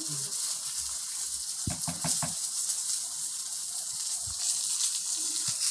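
Keerai kootu simmering in a clay pot, a steady fizzing hiss from its frothing surface, briefly stirred with a wooden spatula.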